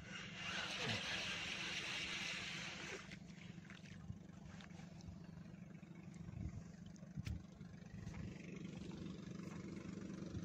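Steady low hum of an engine, with a louder hiss over the first three seconds and a few short knocks a little past the middle.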